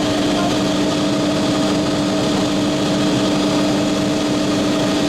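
Helicopter engine and rotor running in steady flight, heard from inside the cabin as a constant loud drone with a steady low hum.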